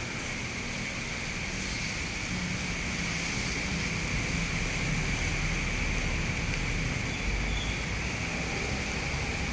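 Steady urban traffic noise: a continuous low rumble that swells a little after the first few seconds, under a constant high hum.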